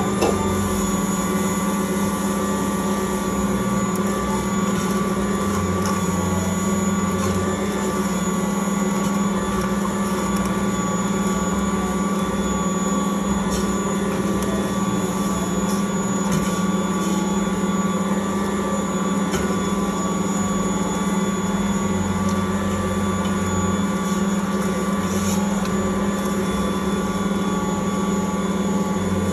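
Ankarsrum Original Assistant stand mixer running with a steady hum, its rotating steel bowl kneading pizza dough against the roller and scraper.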